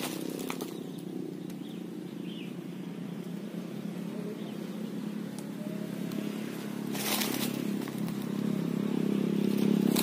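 A motorcycle engine running steadily, its hum growing louder over the last few seconds, with a brief rustle about seven seconds in.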